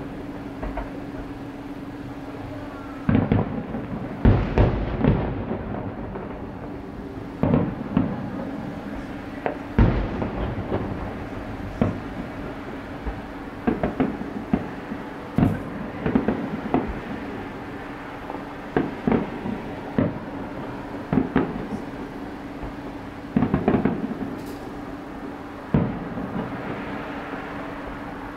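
Aerial fireworks shells bursting at a distance: a string of irregular booms and cracks, some in quick clusters, each trailing off in a short echo. A steady low hum runs underneath.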